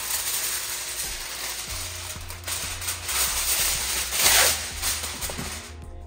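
Sheet of aluminium foil crinkling and rustling as it is pulled out and spread over a baking pan, loudest about four seconds in.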